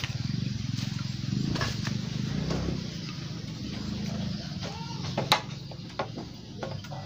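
Bamboo poles knocking and clicking as they are handled and set against a bamboo frame, over a steady low hum; the sharpest knock comes about five seconds in.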